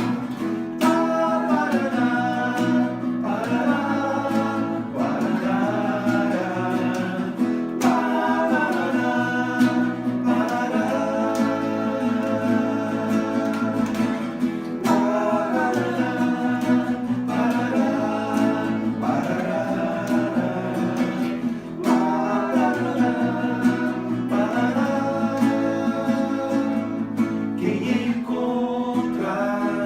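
Home-made acoustic song: voices singing a melody in phrases of a couple of seconds over acoustic guitar chords, with no clear words.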